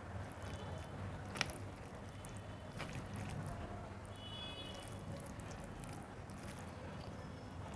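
Quiet wet eating sounds of rice and curry being mixed and chewed, with a sharp click about a second and a half in.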